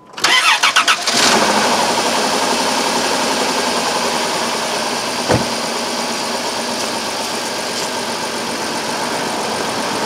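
A 2002 Chrysler Town and Country's 3.3-litre V6 cranks for about a second, catches, and settles into a rough idle with a pretty bad miss, a dead miss. The miss comes from cylinder 5 not firing: its coil gives no spark. One sharp knock is heard about five seconds in.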